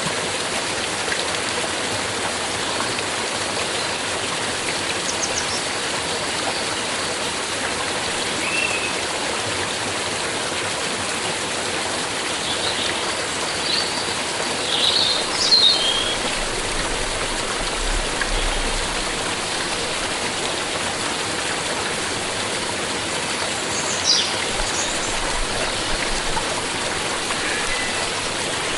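A stream running with a steady rush of water. Birds chirp briefly over it a few times, most around the middle and again near the end.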